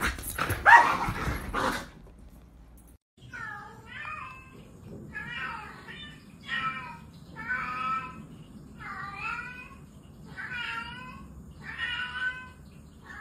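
A ginger cat meowing over and over, one long meow about every second and a half, after a brief, loud scuffle between a black cat and another pet in the first two seconds.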